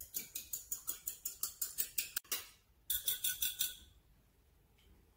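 Fork beating eggs in a small glass bowl: quick, even clinks of the fork on the glass, about seven strokes a second. The beating pauses briefly after about two and a half seconds, then resumes for a short second spell before stopping.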